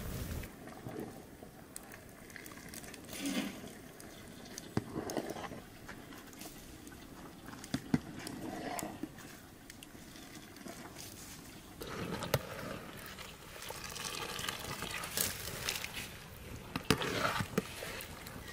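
Rice boiling in a large aluminium pot, stirred with a metal skimmer, with water sloshing and scattered sharp clinks of the utensil against the pot.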